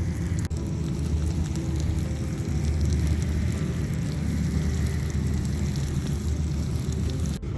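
Food sizzling in a pan over a crackling campfire, a dense steady hiss with fine pops and a low rumble underneath.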